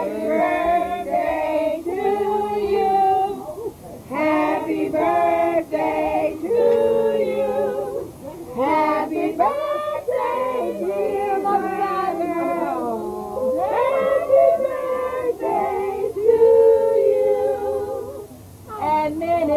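Several people singing a song together, in about four long phrases with held notes and short breaks between them.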